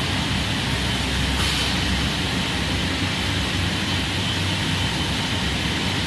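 Industrial conveyor microwave dryer running: a steady mechanical whir with a low hum and a thin, steady high whine over it.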